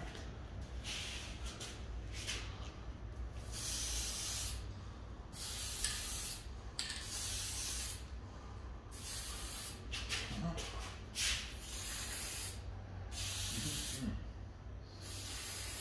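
Aerosol spray-paint can hissing in repeated short bursts of about a second each, with brief pauses between them.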